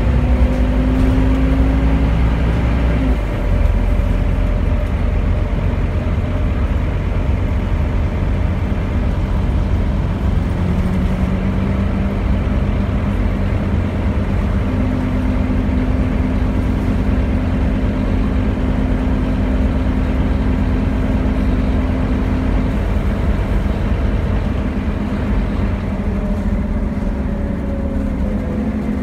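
A Scania N230UD Omnicity double-decker bus under way, its five-cylinder diesel engine and drivetrain running continuously. The engine note changes about three seconds in, then runs on steadily with slight shifts in pitch.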